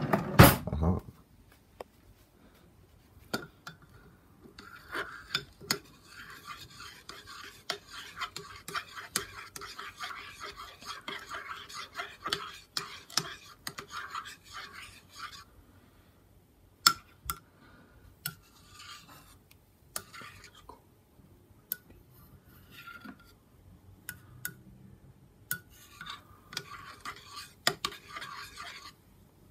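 Metal spoon stirring hot chocolate in a ceramic mug, scraping round the inside in long spells with a few short breaks and the odd sharper clink against the side. It opens with a brief loud clatter of cutlery.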